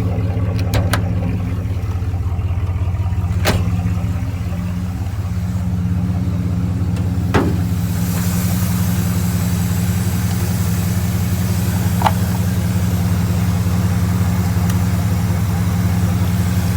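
1982 Trans Am's 5.0 V8 idling steadily on fresh oil after a flush, without the clicking and clattering it had before. A few sharp clicks and taps sound over the idle.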